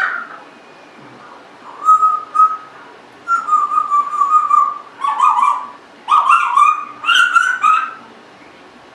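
Congo African grey parrot whistling and calling: two short whistles about two seconds in, then one long held whistle, followed by several rougher, fuller calls.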